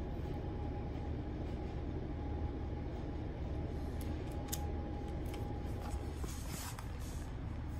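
Steady low background hum with a faint steady whine, a few light clicks as a hand handles the flip phones, then a brief rustle of the camera being moved near the end.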